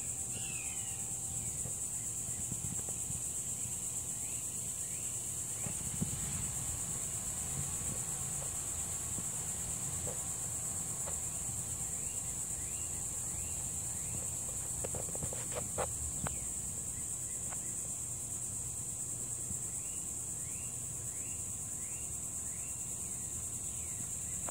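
Steady high-pitched insect chorus, crickets or similar, running without a break. Over it, a bird repeats runs of short slurred notes several times, and a few faint clicks come about two-thirds of the way in.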